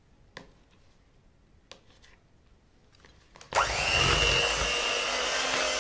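A couple of faint clicks, then about three and a half seconds in an electric hand mixer switches on, its motor whining up to speed and then running steadily as the beaters churn thick margarine and pudding cream in a plastic bowl.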